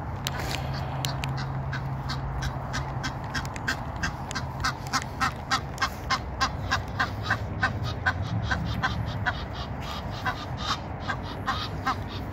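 Egyptian goose honking in a long, even series of calls, about three a second, louder in the middle and tailing off near the end: the display calling that follows a won territorial fight.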